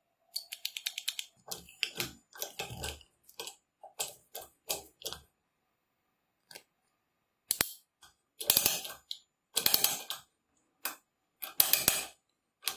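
Ratchet screwdriver's pawl mechanism clicking in quick runs as the wooden handle is turned back and forth, with a quiet pause about halfway through.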